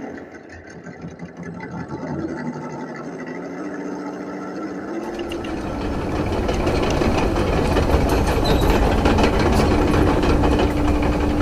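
A heavy vehicle engine running, quieter at first and then suddenly fuller and louder about five seconds in, with a steady hum through the rest.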